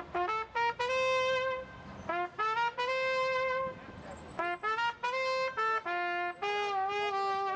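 A brass horn played solo, a melodic line of short notes alternating with longer held notes, with brief breaths between phrases.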